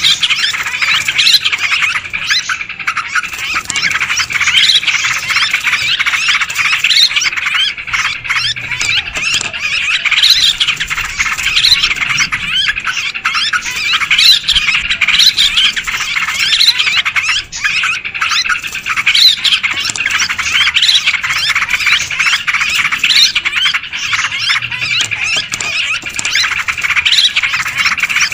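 Yellow-vented bulbuls calling and chattering all at once, many rapid calls overlapping with no pause: a noisy bulbul lure recording of the kind played to draw wild bulbuls in.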